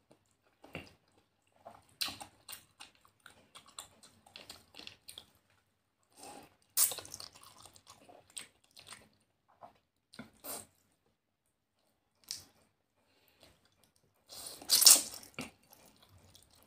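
Close-up mouth sounds of eating spaghetti noodles: wet chewing and smacking throughout, with two longer, louder slurps of noodles, about seven seconds in and again near the end.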